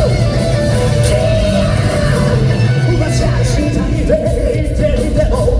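Live rock band playing loudly with a lead singer: a fast, full J-rock song with guitars and drums under the vocals.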